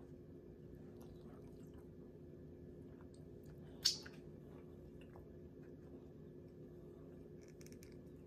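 A person chewing food with quiet wet mouth sounds and small clicks, and one sharp click about four seconds in, over a steady low hum.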